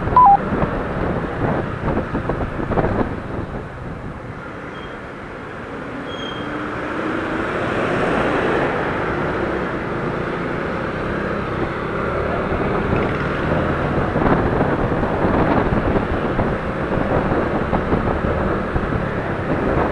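Motorcycle riding along a street: engine running under road and wind noise at the rider's microphone. It grows quieter a few seconds in, then louder again and steady.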